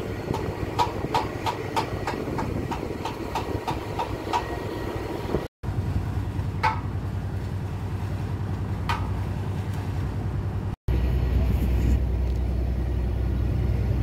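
A steady low engine hum, with a quick, even ticking of about four a second over the first four seconds. The sound cuts out briefly twice; after the second gap the hum is louder.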